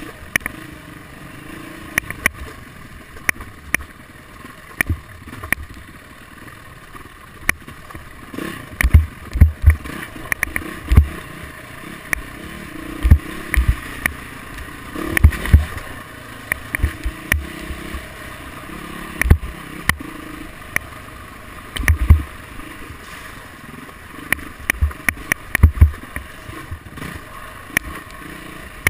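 Dirt bike engine running as it rides a rough forest trail, with frequent loud knocks and thumps from bumps jolting the machine and camera.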